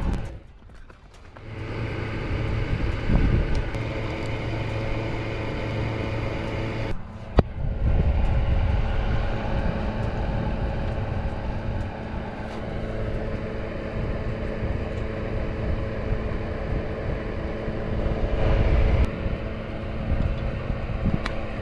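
A steady mechanical hum with a low rumble, like an engine or motor running, broken by a couple of abrupt changes.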